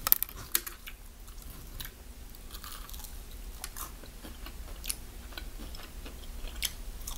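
Close-up eating of crispy fried chicken wings: the wing is torn apart by hand and bitten into, then chewed. There are scattered short crunches and crackles, the sharpest in the first second.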